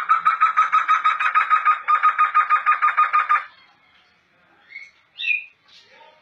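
Black laughingthrush (poksay hitam) singing a fast run of the same pitched note, about six a second, for roughly three and a half seconds with a short break partway, followed by two short, softer calls.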